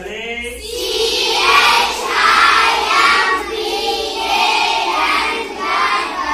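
A class of schoolchildren chanting together in unison, in drawn-out sing-song phrases of about a second each.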